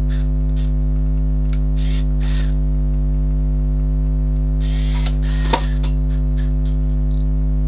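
Loud, steady electrical buzz, a mains hum with many overtones, running under the recording. A few faint handling rustles, one a little louder about five and a half seconds in.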